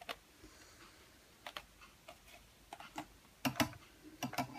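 Scattered light clicks and taps of hands handling the Syma X8C quadcopter's plastic body, several in quick pairs, the louder ones in the second half.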